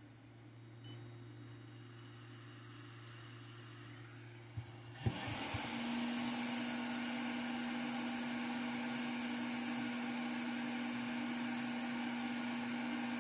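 BEST BST-863 hot air station: three short high beeps from its buzzer, then about five seconds in the blower fan comes on and runs steadily, a rush of air with a steady hum.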